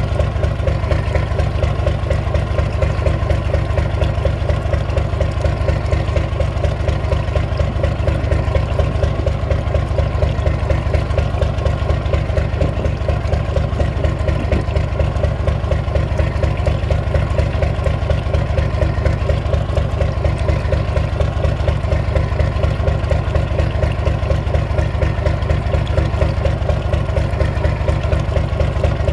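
Yamaha DY37 marine diesel engine idling steadily at about 500 rpm, with a rapid, even pulse, and water splashing from the hull outlet into the sea.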